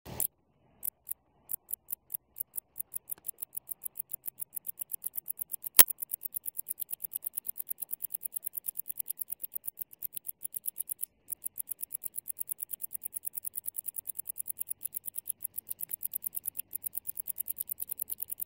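Green bush-cricket stridulating: a run of short, very high chirps, slow and spaced at first, then a steady pulse of about six a second, with a brief pause about eleven seconds in. One sharp click about six seconds in.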